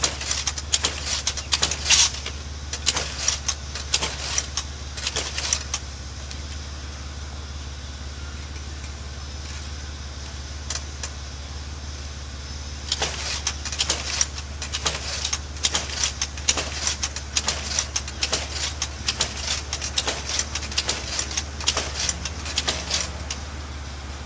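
A steady low engine hum, like a vehicle running, with many irregular sharp clicks and taps over it during the first six seconds and again from about thirteen seconds in.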